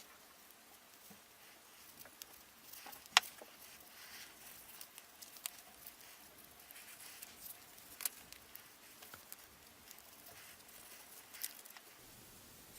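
Scattered light clicks and taps of objects being handled, the sharpest about three seconds in, over faint hiss.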